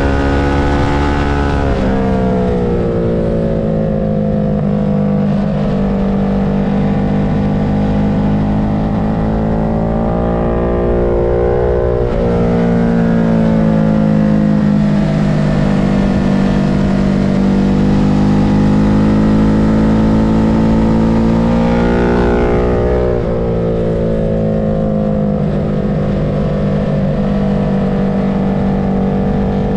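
Engine of a track-day vehicle at speed, heard onboard. Its pitch climbs and then drops sharply at gear changes about two seconds in and again near 23 seconds, with slower falls and rises through the laps in between.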